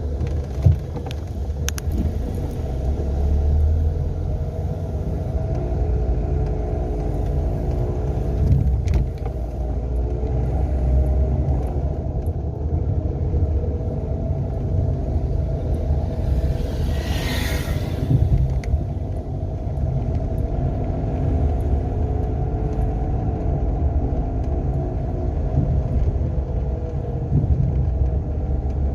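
Renault Sandero driving, its engine and road rumble steady, the engine note slowly rising and falling with speed; the car has a failed alternator bearing. A short sharp click comes about a second in, and a brief whoosh a little past the middle.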